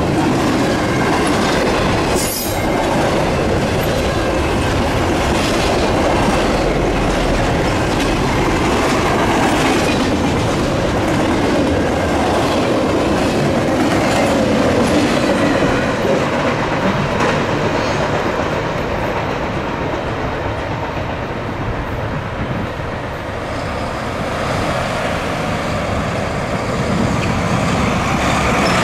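Double-stack container freight cars rolling past on the rails: a steady rumble with repeated clicks of wheels over the track, and one sharp clank about two seconds in.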